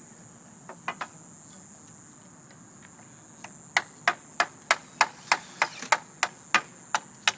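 Sharp knocks on the wooden pallets of a compost bin: a pair about a second in, then a steady run of about three a second from about halfway through, like hammering. A steady high-pitched hiss runs underneath.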